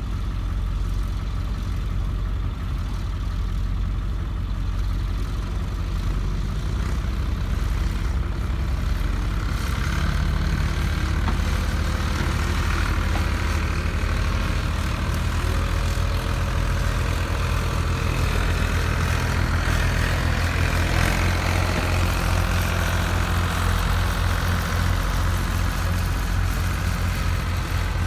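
Backhoe's diesel engine running steadily under load, growing a little louder and busier about ten seconds in as it works harder.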